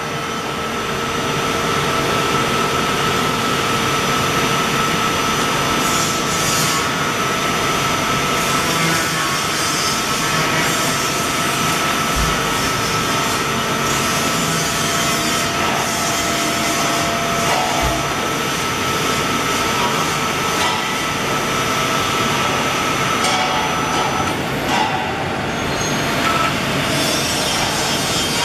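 Spinner TD 42 Triplex CNC turning centre running: a steady mechanical hiss and whir from its spindles and turret drives, with a high whine that stops near the end.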